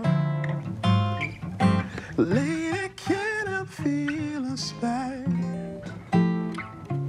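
Acoustic guitar played fingerstyle, picked notes and chords of a jazz tune, with a man's voice singing wordlessly along in places.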